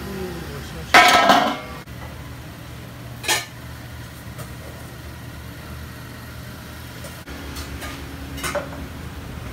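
Metal cookware clattering: a loud ringing clang about a second in, then a few sharper knocks, over a steady low hum.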